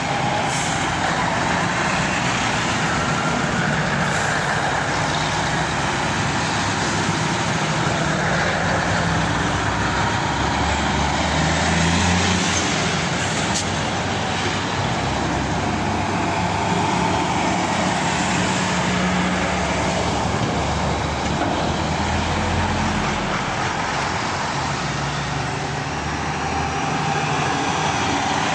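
Heavy diesel lorries, among them a Scania tractor unit, a stainless tanker and a Volvo F-series tractor with a low loader, driving past one after another. Engines are running and tyres are hissing on the road, with the engine note swelling and changing as each lorry passes.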